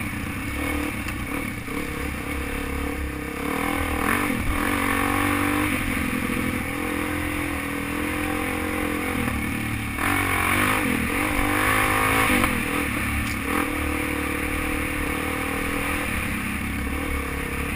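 Suzuki DR-Z single-cylinder four-stroke dual-sport motorcycle engine running under way, heard from the riding position. Its pitch rises and falls with throttle and gear changes, most clearly about four seconds in and again around ten seconds in.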